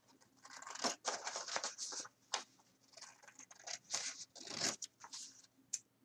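Scissors cutting through folded coloured card: a series of uneven cuts with short pauses between them, with the card rustling as it is handled.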